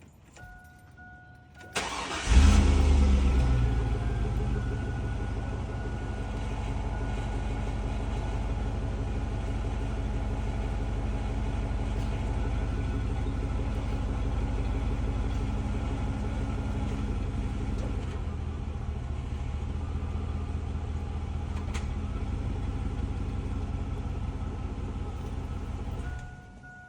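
A brief steady electronic tone, then a 2001 Chevrolet Suburban's V8 is cranked and starts about two seconds in, flaring briefly before settling to a steady idle. The engine runs for about 24 seconds and is shut off near the end.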